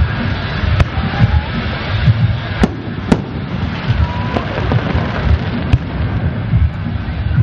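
Fireworks display: aerial shells booming one after another in a constant deep rumble, with a few sharp, high cracks standing out above it.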